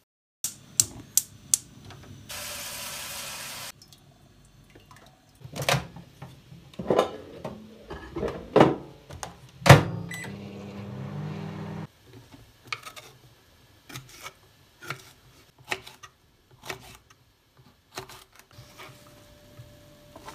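Kitchen sounds while cooking: a few sharp clicks, a hiss lasting about a second and a half, then knocks and clatter of an appliance door and pans, with one loud bang near the middle. A low hum follows for about two seconds, then light knife chops on a wooden cutting board, about one a second.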